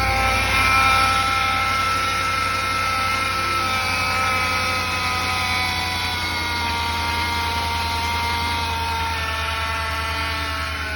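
2020 Ram 5.7 eTorque V8 running with a high whine from a failing belt idler pulley, the sound he says comes with every acceleration and is almost like a turbo. The whine swells slightly about a second in, then its pitch slowly drifts down as the revs settle, over the steady engine drone.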